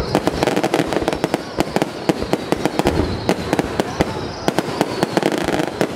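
Aerial fireworks bursting at close range: a dense, irregular run of sharp bangs and crackles, several a second, without a break.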